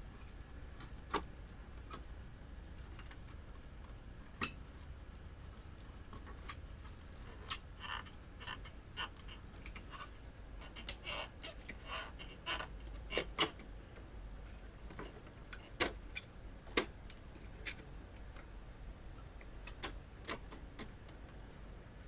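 Scattered sharp clicks and taps of small screws, a screwdriver and plastic printer parts being handled, coming thickest in the middle of the stretch, over a faint low hum.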